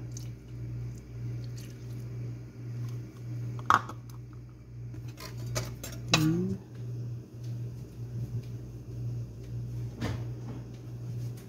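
A few scattered clinks and knocks of kitchenware being handled, a ceramic cup and a glass mixing bowl, the sharpest about four and six seconds in, over a steady low hum.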